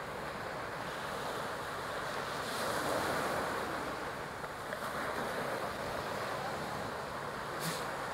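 Ocean surf washing onto the beach, with wind on the microphone; the wash swells about three seconds in.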